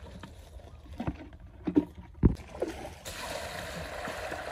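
A few dull knocks, then, about three seconds in, muddy water pouring in a steady splashing rush out of a plastic bucket into a wicker basket.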